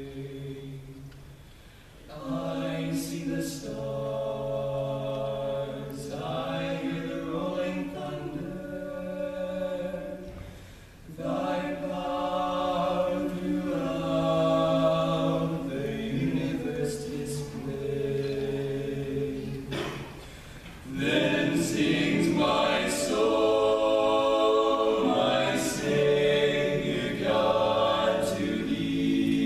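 Barbershop quartet of four male voices singing gospel a cappella in close four-part harmony. The chords are held in long phrases, with short breaths about 2, 11 and 21 seconds in.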